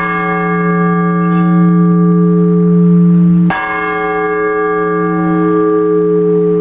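A single large Orthodox church bell ringing in slow, measured single strokes, the measured one-bell ringing known as blagovest. The hum of the previous stroke carries on, the bell is struck again about halfway through, and it rings on.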